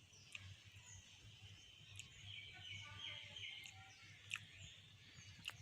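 Faint small-bird chirps: many short, quick calls repeating over a quiet outdoor background, with a few faint clicks.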